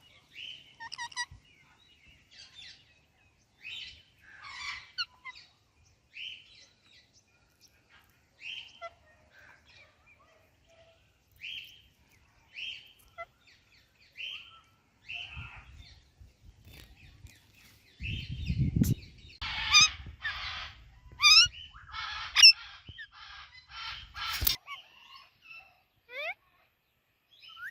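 Indian ringneck and Alexandrine parakeets calling: short chirps repeated every second or two, then a run of louder, harsh squawks in the last third. A low rumble sits under the loudest squawks.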